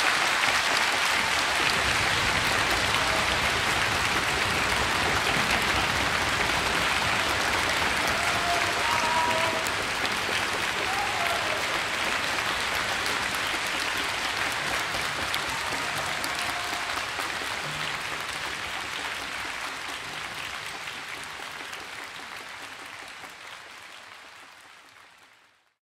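Concert-hall audience applauding steadily after the orchestral performance, fading away over the last few seconds.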